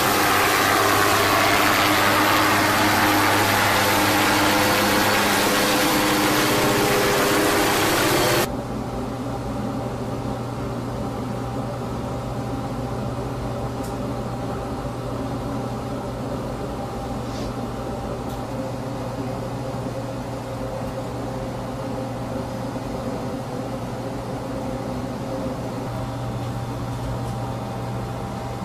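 MQ-8B Fire Scout unmanned helicopter flying overhead: loud, steady turbine and rotor noise with a low drone. About eight seconds in it cuts off abruptly to a quieter, steady low mechanical hum heard inside the ship's enclosed flight-control station.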